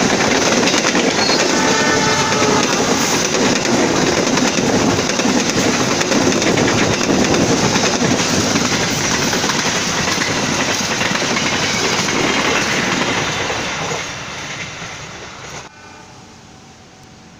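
Passenger train coaches rolling past close by, wheels rumbling and clacking over the rail joints. The noise fades near the end, then drops away suddenly as the train clears.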